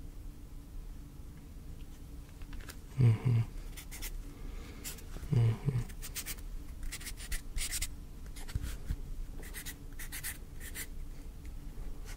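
Pen writing: a run of short, scratchy strokes, clustered in the second half. Two brief murmured voice sounds come about three and five and a half seconds in.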